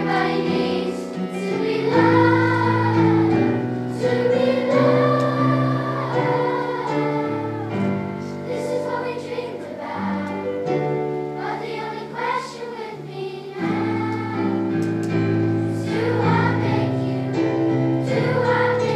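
Children's choir singing a song in unison, holding long notes over an instrumental accompaniment.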